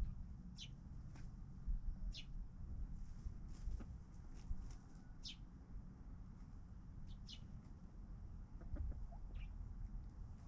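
Chickens calling: short, high-pitched calls that fall in pitch, every second or two, over a low rumble.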